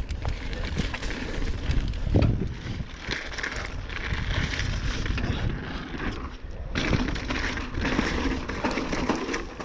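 Mountain bike riding down a dirt trail: tyres rolling over rough ground, with frequent clattering knocks and rattles.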